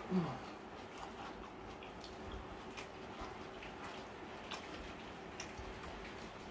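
Hand-eating a meal of banku and grilled tilapia: a short falling 'mm' from the eater's voice as a handful goes into his mouth, then scattered soft, wet clicks and smacks of chewing and of fingers picking at the fish on the plate.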